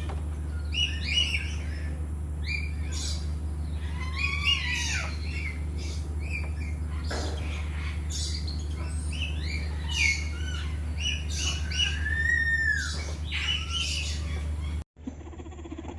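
Many birds calling at once, a dense mix of squawks, short chirps and arching calls, over a steady low hum. About fifteen seconds in, the calls cut off abruptly and a quieter scene follows.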